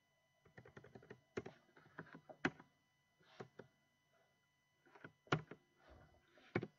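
Quiet, irregular keystrokes of someone typing on a computer keyboard, with a short pause a little past the middle.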